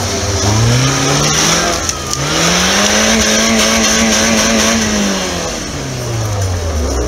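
Off-road buggy's engine revving hard under load as it climbs a snowy slope. The revs rise about two seconds in, are held high for a couple of seconds, then fall away near the end.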